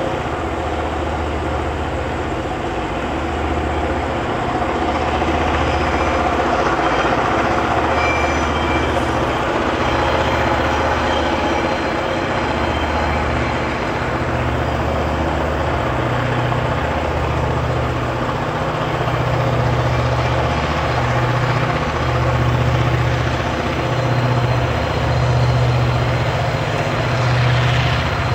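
Two DBZ class diesel locomotives working hard at the head of a loaded coal train: a steady heavy engine drone with a slow, pulsing low throb.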